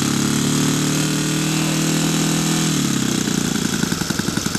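Saito 36cc four-stroke gasoline engine on a large model Spitfire running just after being started, at first at a steady fast idle. About three seconds in it drops to a slower, lumpier idle with separate firing beats.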